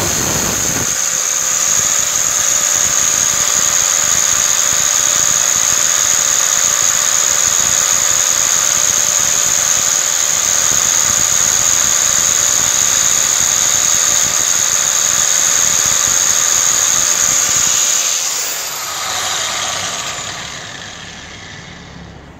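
Angle grinder with a green abrasive disc running with a steady high whine, a tungsten electrode ground against the disc for about the first second. About eighteen seconds in it is switched off and winds down, its pitch falling.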